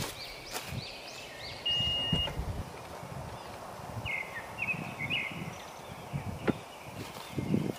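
Footsteps crunching on gravel and birds chirping, with a single short beep about two seconds in as the Honda CR-V's tailgate is opened, and a sharp click near the end of its lift.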